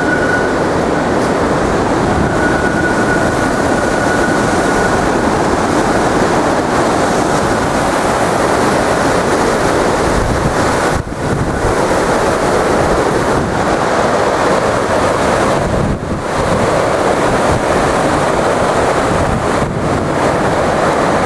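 Hurricane-force wind rushing through trees and buffeting the microphone, loud and continuous, easing off briefly twice. A faint high whistle sounds at the very start and again for a few seconds just after, the howling of wind through high-voltage power lines.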